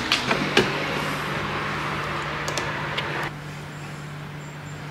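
A steady low mechanical hum with a few light clicks and knocks in the first three seconds. It gets quieter about three seconds in, but the hum carries on.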